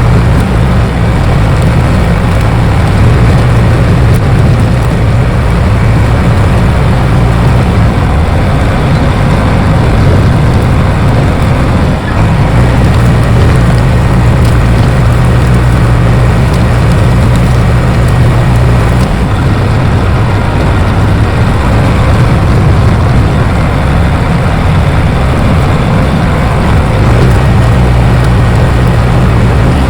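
Bulldozer's diesel engine running steadily and loudly, its low note strengthening and easing off at times as it works.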